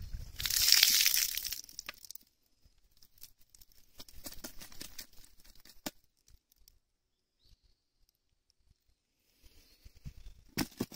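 A loud rustling scrape lasting a couple of seconds, then scattered light crunching footsteps on a gravel path, with a few sharp knocks near the end.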